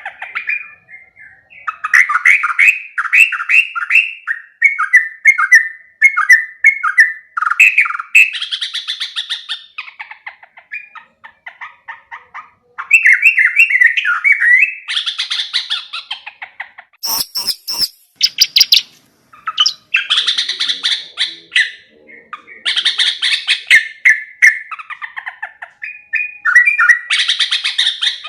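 Yellow-vented bulbul (trucuk) singing: bubbly, chattering phrases repeated again and again with short pauses between them. A few sharp clicks come about two-thirds of the way through.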